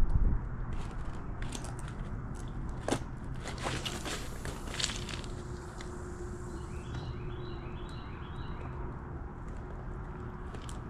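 Fishing rod being cast: handling clicks, then a rushing swish about four to five seconds in as the rod sweeps and line runs off the reel, over a steady low rumble. A short run of high chirps follows near the end.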